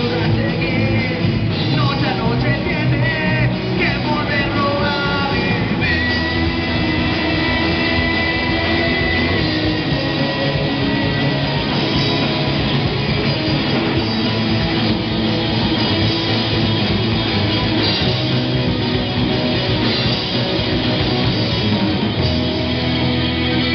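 Live rock band playing loud electric guitars and drum kit, with a high note held for several seconds starting about six seconds in.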